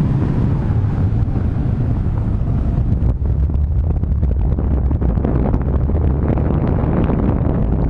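Wind noise on the camera microphone from the airflow of paraglider flight: a steady low rush with irregular fluttering.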